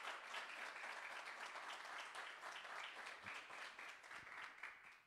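Congregation applauding, many hands clapping together, dying away near the end.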